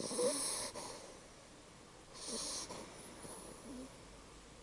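Labrador Retriever puppy snoring in its sleep: two hissing breaths, one at the start and one about two seconds in.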